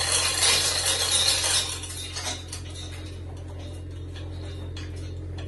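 Harsh rasping noise from hand work on an old oak beam, which stops about a second and a half in, followed by light metallic clinks.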